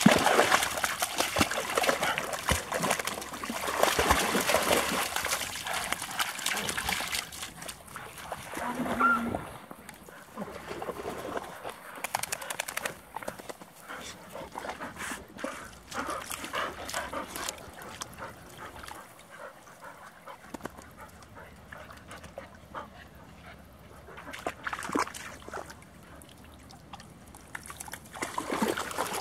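Dogs wading and splashing in shallow water, with sloshing and dripping. The splashing is busiest in the first several seconds, then softer and more scattered.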